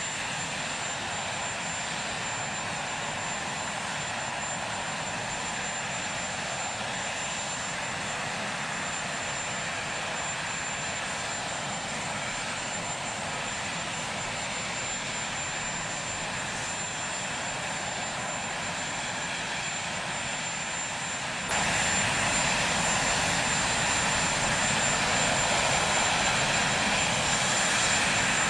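Marine One, a VH-3D Sea King helicopter, with its turbine engines running: a steady rushing whine with a thin high tone over it. The sound gets suddenly louder about three quarters of the way through.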